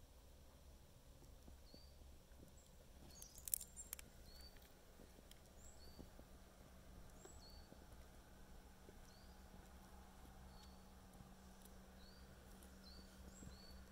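Near-silent outdoor ambience: faint, short, high chirps repeat about once a second over a low steady hum, with a brief cluster of sharp clicks about three and a half seconds in.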